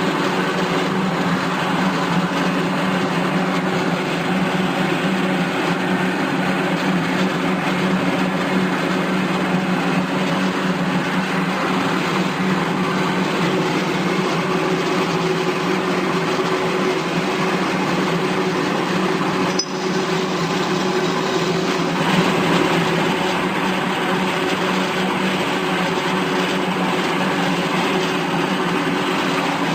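An 18-inch Marvel Series 8 Mark 1 vertical bandsaw running steadily, its motor and blade drive giving a constant hum over a mechanical whir, with a brief dip about twenty seconds in.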